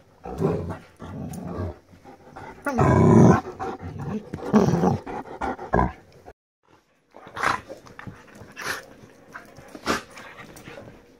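A Great Dane and a Border Collie play-wrestling and growling at each other, with the loudest growl about three seconds in and another near five seconds. A little after six seconds there is a brief silence, then a run of short sharp sounds from the tussle.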